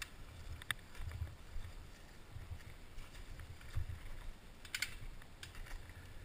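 A Giant Faith 2 downhill mountain bike rolling down a rough, rocky trail, heard through a helmet-mounted camera: a low rumble of bumps and wind buffeting with scattered clicks and rattles from the bike, the sharpest about a second in and again near five seconds in.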